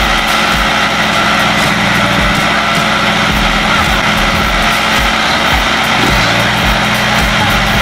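Old crawler loader's diesel engine running steadily while it works in mud, a constant engine hum with irregular low thuds underneath.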